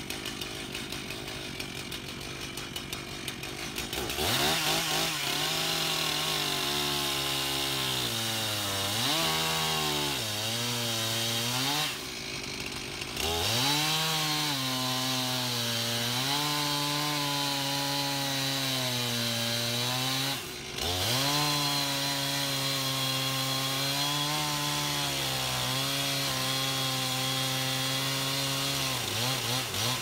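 Stihl chainsaw cross-cutting a log: idling at first, then opened up to full throttle about four seconds in, its pitch sagging as the chain bogs in the wood. It eases off twice briefly, goes back to full throttle, and drops to idle near the end.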